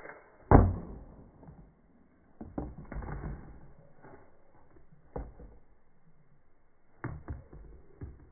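A string of short dull knocks and light clatters, the loudest about half a second in, a cluster around three seconds in, then single knocks near five, seven and eight seconds: shots from a small homemade wooden toothpick launcher and thin plastic cups being struck and toppling.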